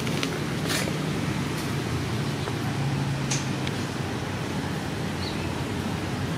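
Steady background rumble and low hum of distant traffic, with a few brief faint clicks.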